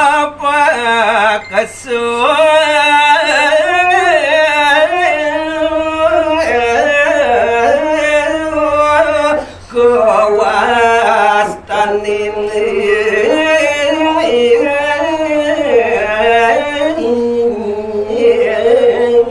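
A man singing a Balinese pupuh sinom verse solo into a microphone, in long drawn-out notes with wavering ornaments, breaking off briefly for breath a couple of times.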